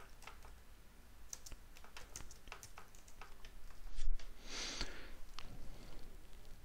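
Computer keyboard typing: a run of quick, light keystrokes, then a louder thump about four seconds in.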